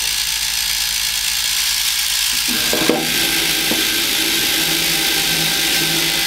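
Electric motors of a robot wheel intake whirring steadily at speed. About two and a half seconds in, the spinning wheels grip a plastic game block and draw it in, adding a lower hum with a single knock just after.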